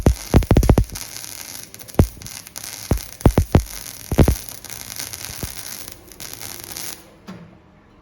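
Electric arc welding: a steady high hiss with irregular loud crackles and pops from the arc. It cuts off about seven seconds in as the arc is broken.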